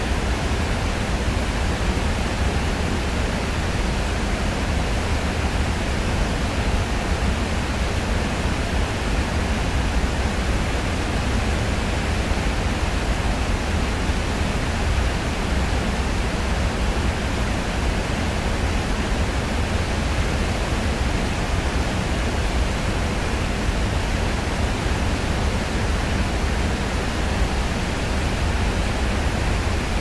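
Waterfall: a steady, even rush of falling water with a deep low rumble under it.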